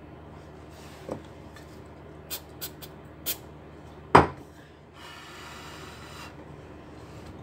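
Laptop case parts being handled during a hinge repair: a few light clicks and taps, a louder knock about four seconds in, then a rubbing scrape lasting about a second.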